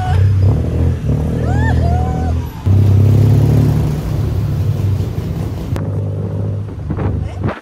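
Tuk-tuk engine running under way, a steady low drone heard from the open passenger seat, with a brief dip about two and a half seconds in.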